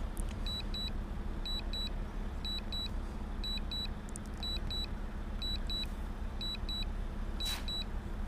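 DJI drone remote controller beeping its Return-to-Home alert: a short high double beep about once a second while the drone flies itself back. A steady low rumble runs underneath.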